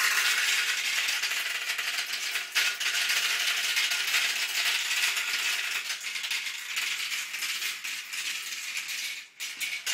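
Marbles rolling and clattering down a plastic marble-run tower: a dense, continuous rattle of small clicks that starts suddenly and eases off near the end.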